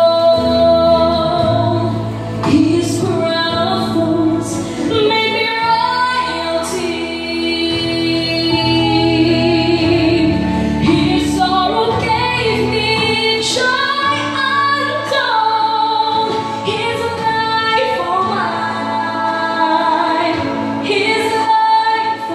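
A woman singing a Christian song solo into a handheld microphone, her voice amplified through a PA speaker, over accompaniment of held chords that change every few seconds.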